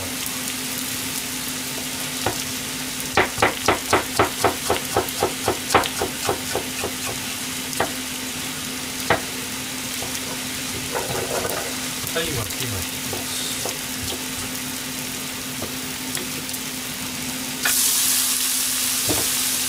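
Pork and vegetables sizzling steadily in a frying pan on low heat. From about three seconds in comes a run of quick knife chops on a cutting board, about four a second, likely green pepper being cut. Near the end the sizzle suddenly gets louder as the chopped green pepper is pushed into the hot pan.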